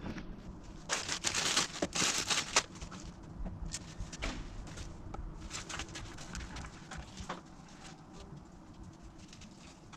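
Handling noises of cleaning materials being set up: a run of scratchy rustling and rubbing sounds about a second in, then scattered light clicks and taps that die away.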